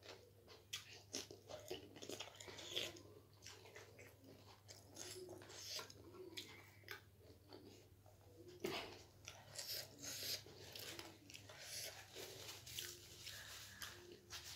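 A person chewing a crunchy snack close to the microphone: irregular soft crunches and mouth clicks, with a louder crunch about nine seconds in.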